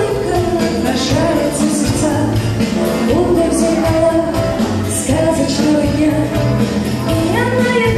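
Live pop song: two women singing into microphones over Yamaha keyboard accompaniment with a steady beat.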